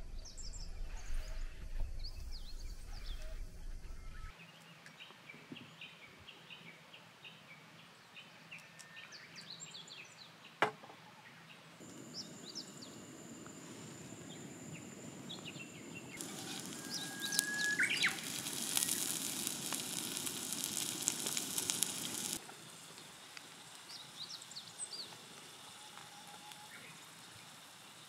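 Birds chirp and call throughout, over a low rumble in the first few seconds. Partway through there is a single sharp click. Then food in a pan on a camp stove sizzles steadily for about ten seconds before it cuts off.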